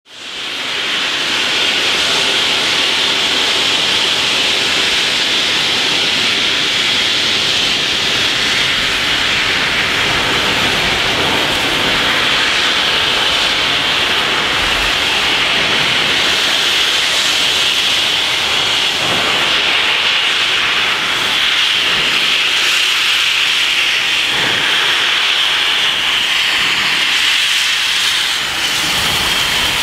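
Loud, steady hiss of steam venting from NSWGR C38 class Pacific steam locomotive 3801.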